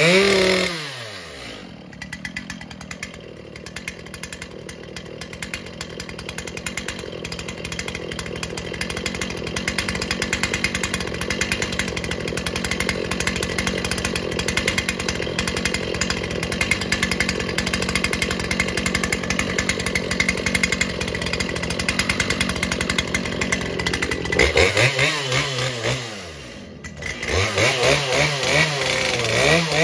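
Two-stroke chainsaw falling from a rev to idle and running steadily at idle. Near the end its throttle is blipped a few times and then opened up to high revs.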